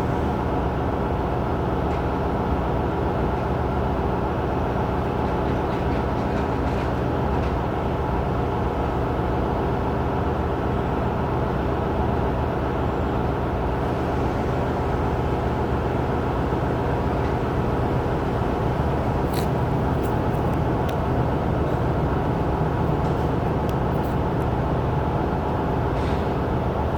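An engine idling with a steady, unchanging low drone.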